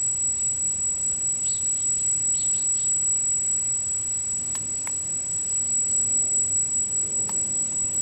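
Powered brushless gimbal motors giving a steady high-pitched whine while the camera is steered by joystick. A few faint chirps come one to three seconds in, and a few sharp clicks come later.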